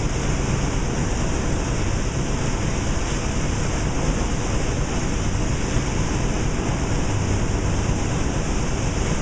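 Large flat-belt-driven processing machinery running with a steady, dense noise and a low hum underneath.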